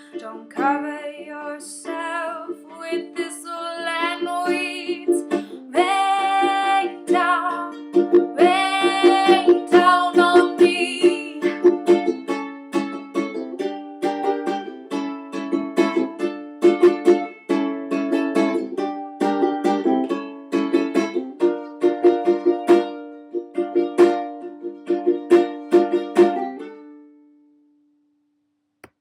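Song outro on a strummed acoustic string instrument. A wordless sung voice holds long notes over the first ten seconds or so, then the strumming carries on alone and stops at about 27 s, the last chord dying away.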